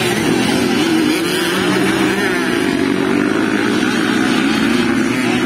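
Several motocross dirt bikes racing on a dirt track, their engines revving up and down with overlapping, wavering pitches as riders accelerate and back off over the jumps and turns.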